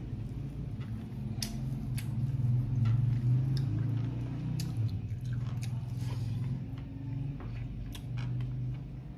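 A man chewing food with his mouth open, with scattered sharp smacking clicks.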